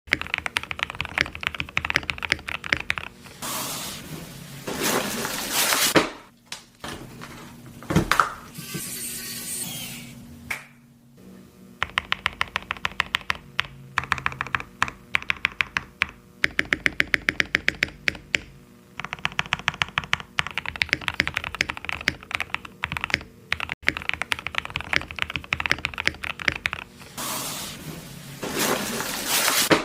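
Typing on a custom mechanical keyboard fitted with TX AP PCB stabilizers: rapid key clicks in bursts with short pauses, and a few brief louder rushes of noise between the bursts.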